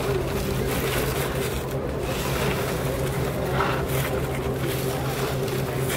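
A steady low droning hum holding a constant low tone with a fainter higher tone above it, unchanging throughout, like a sustained electronic drone played through a loudspeaker.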